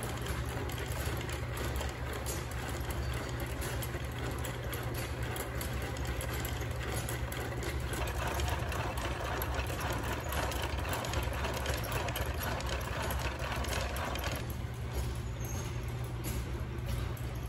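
A steady mechanical hum with a hiss over it, and no clear strokes or rhythm. About three-quarters of the way through the hiss drops back while the hum carries on.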